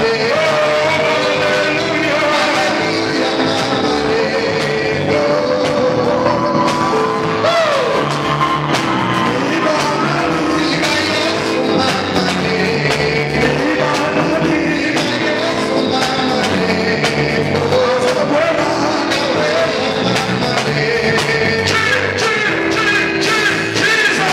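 Live band music: a man singing lead into a microphone with another man and backing singers joining in, over electric bass guitar and keyboard.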